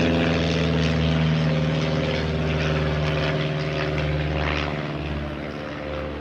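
Steady low drone of a propeller aircraft engine passing overhead, easing off a little near the end.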